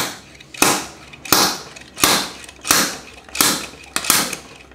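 Slide hammer bearing puller: the sliding weight is driven against its end stop again and again, about seven sharp metal knocks, roughly one and a half a second, each ringing briefly. It is jerking a blind pivot bearing out of a full-suspension bike frame.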